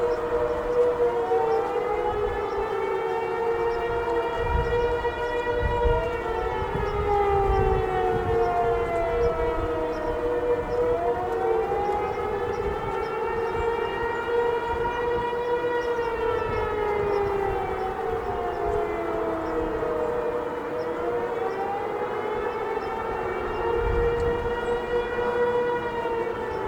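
Outdoor tornado warning sirens, a Federal Signal 508 and a Federal Signal Eclipse 8 among them, sounding together for a tornado warning. A steady tone holds beneath several overlapping wails whose pitch rises and falls slowly, about every ten seconds, with a low rumble underneath at times.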